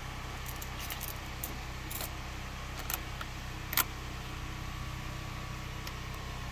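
Jumper cable clamp clinking against a battery terminal post: a few light metallic clicks, the sharpest near four seconds in, over a steady low hum.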